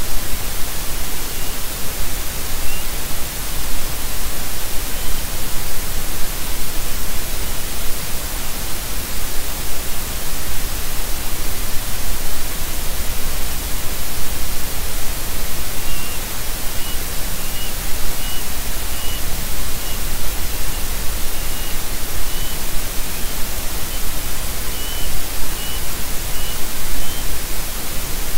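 Loud, steady hiss of static from the nest camera's microphone. Faint short chirps sound about once a second through the second half.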